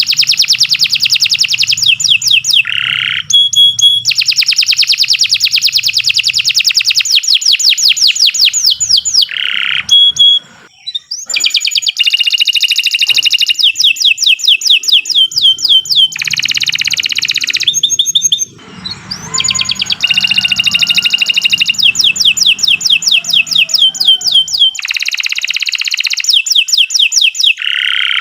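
Domestic canary singing a long, continuous song made of rapid trills of quickly repeated sweeping notes, some phrases switching to a held buzzy note, with brief breaks about ten and eighteen seconds in.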